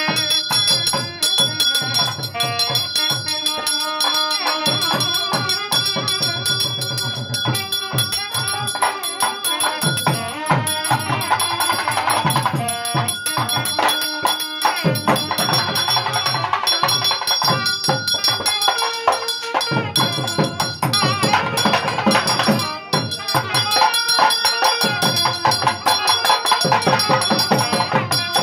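Temple festival band: a thavil barrel drum struck in fast, dense rhythms, with a nadaswaram playing a melody over it, and a bell ringing steadily throughout, as during a lamp arti.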